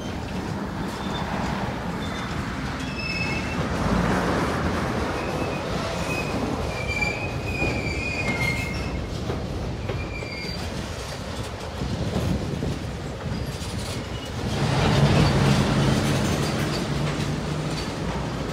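CSX freight train of boxcars and empty centerbeam flatcars rolling past, a steady rumble of wheels on rail with thin, high wheel squeals in the first half. The rumble grows louder about fifteen seconds in.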